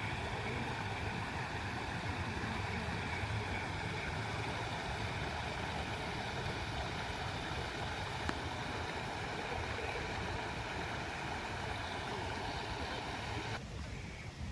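Steady rushing of water at a lake at night, with a faint steady high tone over it; the high part of the sound drops away abruptly about a second before the end.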